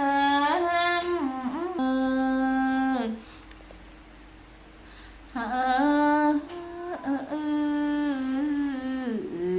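A woman's voice humming a slow tune in two long phrases of held notes that step up and down a little in pitch, with a pause of about two seconds between them.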